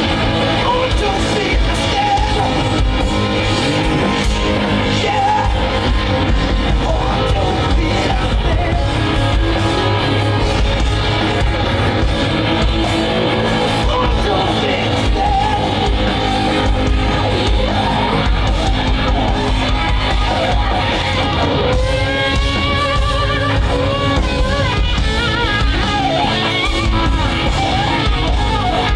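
Live rock band playing loud: electric guitars, bass guitar and drums. In the last several seconds a lead line bends and wavers in pitch over the band.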